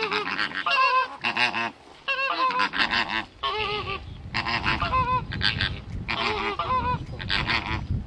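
Flamingos calling: clusters of many short calls overlapping one another, broken by brief pauses, with a low rumble underneath from about three seconds in.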